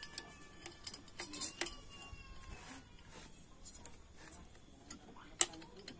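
Cylinder block being worked down over the piston and mounting studs of a Yamaha Mio M3 125 engine: scattered light metallic clicks and taps, with one sharp click about five and a half seconds in.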